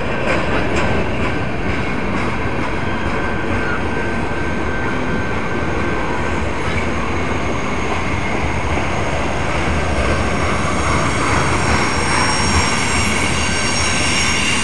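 Freight train cars rolling past on the rails, a steady rumble with a few clicks early and high, steady squealing tones from the wheels that grow stronger in the second half.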